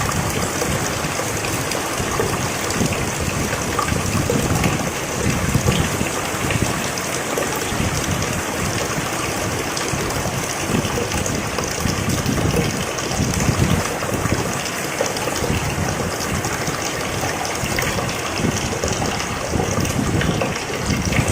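Steady rain falling, a dense even patter with an uneven low rumble that swells and fades every second or two.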